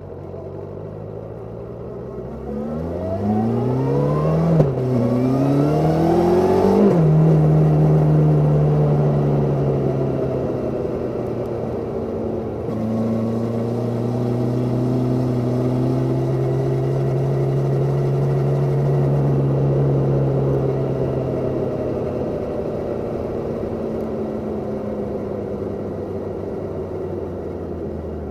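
Suzuki Katana 750's inline-four engine, heard from under the seat: it idles, revs up with two quick breaks and drops in pitch like upshifts, holds steady revs for a long stretch, and winds back down toward idle near the end.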